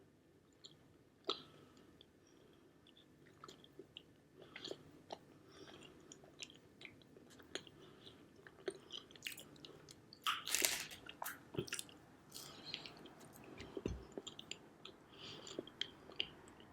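A person chewing marshmallow pie close to the microphone: soft, wet mouth clicks and smacks scattered throughout, with a louder noisy stretch a little past the middle.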